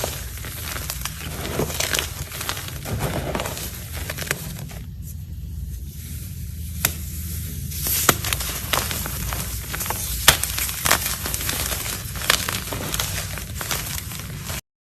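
Close-up crackling and crinkling with many small clicks, cutting off abruptly near the end.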